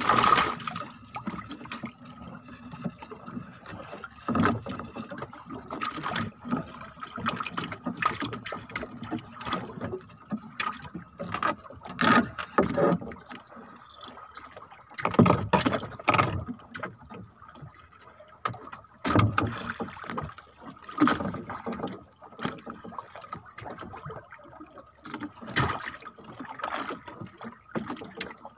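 Irregular knocks, rustling and splashy sounds of a handline being hauled in and a catch handled on a small wooden fishing boat, over a faint steady high tone.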